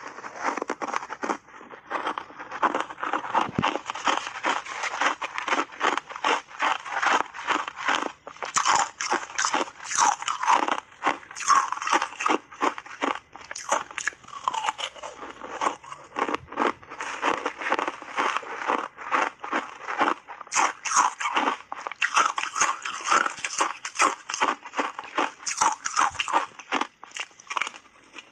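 Close-miked crunching and chewing of shaved ice dusted with matcha powder, big spoonfuls bitten and ground between the teeth in a dense, continuous run of crunches.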